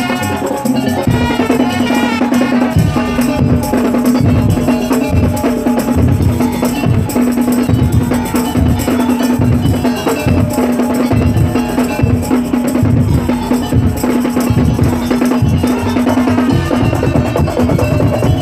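Madurese daul (tongtong) music playing: a bass drum beats regularly, a little more than once a second, under dense wood and rattle percussion, with one droning note held almost throughout.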